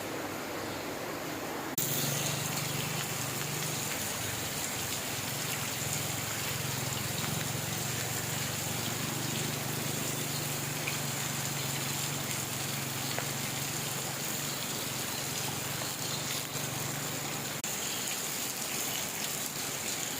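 Heavy rain pouring down as a steady, dense hiss that turns abruptly louder about two seconds in. A low hum runs underneath and stops near the end.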